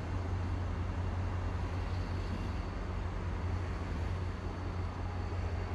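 Diesel commuter-rail locomotives running with a steady low drone as a train rolls past below, mixed with the rush of highway traffic.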